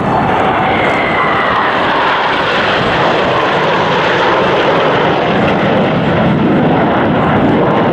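Formation of eight KAI T-50B jet trainers flying past, their single F404 turbofan engines making a loud, steady rushing jet noise. A whine falls in pitch over the first three seconds.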